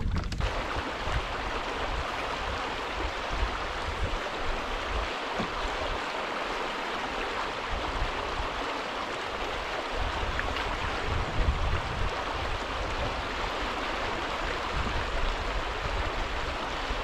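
Steady rushing of a shallow river current running over a riffle, with a low rumble of wind on the microphone that comes and goes.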